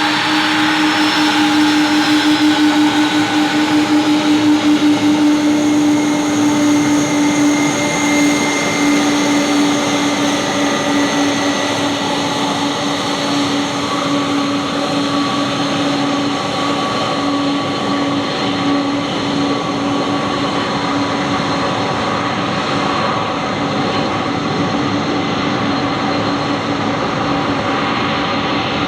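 Jet airliner engines running with a steady whine over a deeper hum, loudest in the first few seconds; the high hiss thins out over the second half.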